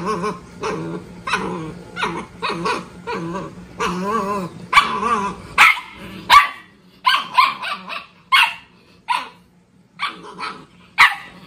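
Dogs barking and growling: a string of short, wavering growly barks about every half second, then from about six seconds in, sharper, higher single barks coming irregularly, roughly two a second.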